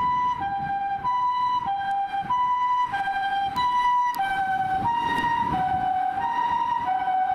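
Japanese ambulance two-tone siren alternating steadily between a high and a low note (the 'pii-poo' pattern), each note about half a second long. Both notes drop slightly in pitch about halfway through.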